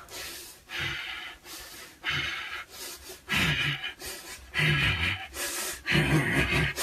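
A man panting hard in rhythmic breaths about once a second, the breaths turning into voiced grunts that grow louder toward the end: an actor's effort sounds recorded as ADR to match a running scene.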